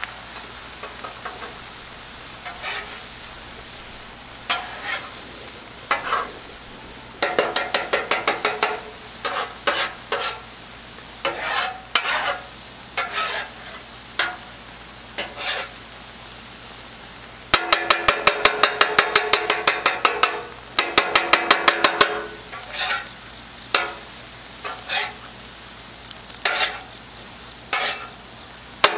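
Metal spatulas chopping and scraping scrambled eggs on the steel top of a Blackstone griddle, over the steady sizzle of the eggs frying on the hot plate. The spatulas strike in runs of quick, ringing clacks, about six a second, that come and go; the longest run comes a little after halfway.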